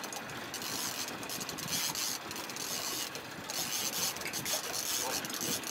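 Fishing reel being cranked by an angler fighting a hard-pulling king salmon: a steady mechanical noise with no clear beat.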